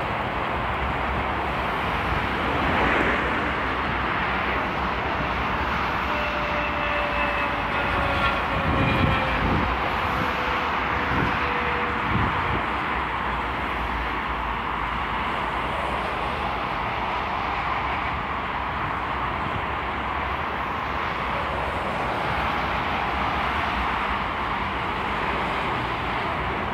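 Steady motorway traffic noise: tyres and engines of lorries and cars passing at speed. From about a quarter to nearly halfway through, a whine falling slowly in pitch sits over the traffic.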